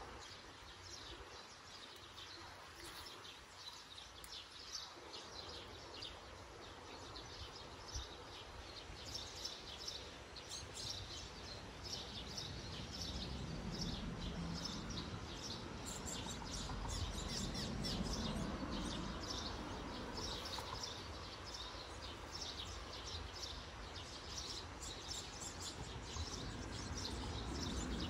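Small birds chirping again and again over steady outdoor background noise, with a low rumble that builds from about halfway through.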